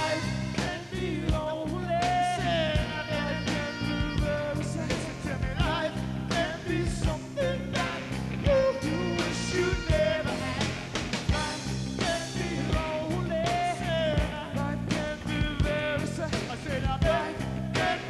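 Live rock band playing a song: electric guitar, bass and drums with a singer's voice over them.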